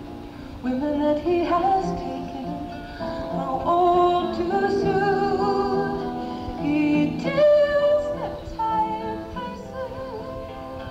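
A woman singing live with acoustic guitar accompaniment, the voice carrying a gliding melody over steady strummed notes. It is heard through a lo-fi 1970s audience cassette recording.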